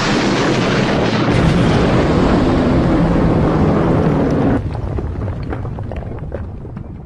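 Air-to-air missile launching from a fighter jet's wing: a loud rushing noise over a low rumble that cuts off suddenly about four and a half seconds in, then fainter crackling that fades away.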